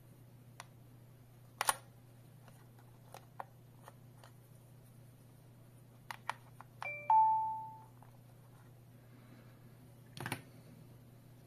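Plastic clicks from handling a magnetic door/window entry sensor and its magnet, then a short electronic beep from the alarm panel about seven seconds in as the sensor is paired; one more click near the end.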